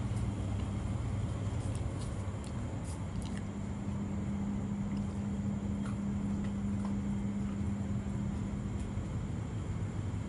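A steady low machine hum, with a few faint scattered clicks.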